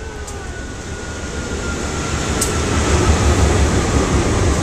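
BNSF diesel-electric locomotives leading a double-stack container train pass close by at speed: engine and wheel rumble builds and grows loud as they go by, with a faint whine sliding slowly down in pitch over the first few seconds.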